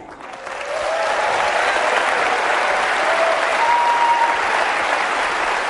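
A large audience applauding, building up within the first second and then holding steady.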